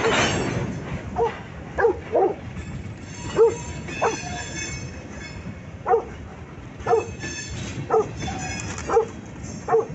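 A dog barking in short, sharp yelps, about once a second, as a freight train's cars roll past. The train's rolling noise runs steadily underneath and is loudest right at the start.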